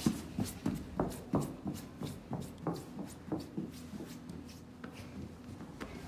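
A run of short, irregular taps and knocks, about two or three a second, stronger for the first few seconds and then thinning out over a faint low hum.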